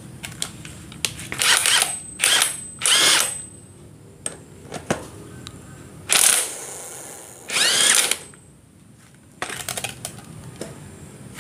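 Mollar impact wrench fired in five short bursts, three in quick succession and then two more, each with a rising whine as the motor spins up. It is hammering a stuck threaded bicycle freewheel loose through a freewheel removal tool. Light clicks of the tool being handled come between the bursts.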